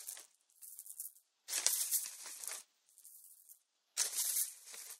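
Small decorative glass stones being shaken out of their box onto a bed of moss, rattling in several short bursts, the loudest about a second and a half in.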